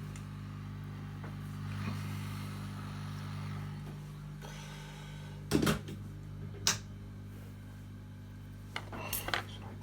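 Hot air rework station running with a steady electrical hum and a soft hiss of air, for desoldering a chip. A few sharp clicks come about halfway through and again near the end.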